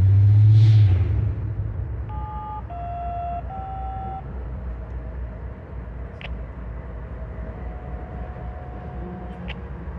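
Diesel freight locomotives rumbling past, loudest in the first second and then fading to a steady low rumble. Three short horn-like tones of shifting pitch sound about two to four seconds in.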